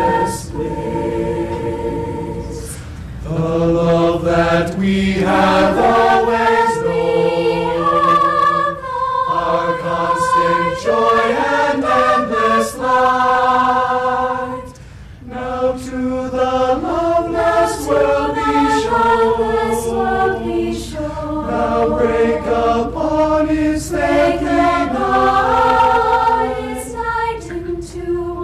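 High school choir singing in several-part harmony, holding long chords that shift every second or so, with one short breath pause about halfway through.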